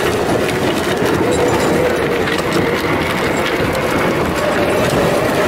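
Toy car rolling and rattling as it is towed over a gravel road, its wheels crunching on the stones, with a faint steady hum that rises slightly in pitch underneath.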